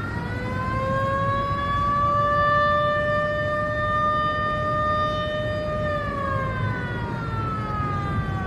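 Outdoor warning siren sounding one long wail: it climbs to full pitch in the first second, holds steady, then winds down over the last couple of seconds, with a low rumble underneath.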